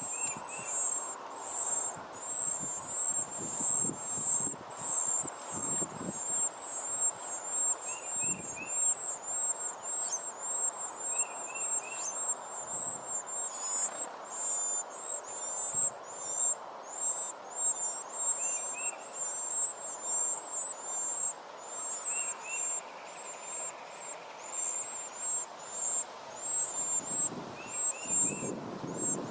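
Nestling birds begging with rapid, high-pitched cheeping that keeps up without a break. A few short double chirps from another bird come in now and then.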